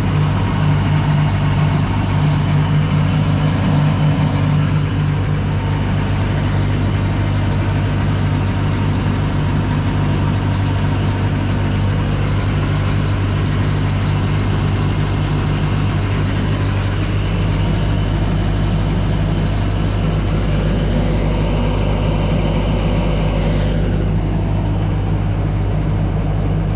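2017 Bobcat T550 compact track loader's diesel engine running steadily at a constant speed, with no revving.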